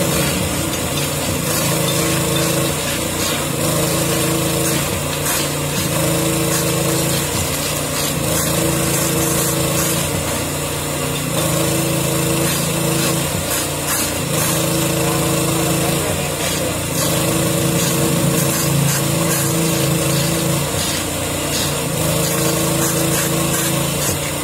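Small petrol engine running steadily, its note strengthening and easing every few seconds as the load changes.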